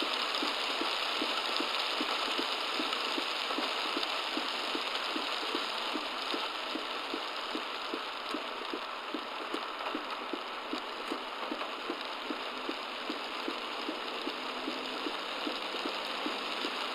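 Heavy rain on a car, picked up by a dashcam inside it: a steady dense hiss over a quick, regular low thudding of about three beats a second.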